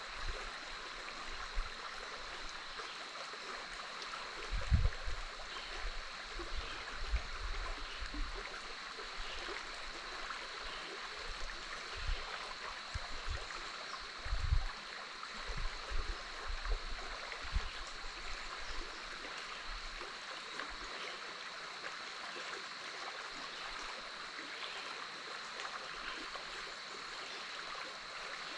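Big Otter River flowing steadily past its sandy bank, an even rush of running water, with a thin steady high-pitched hum underneath. A few low rumbling bumps come and go in the first half.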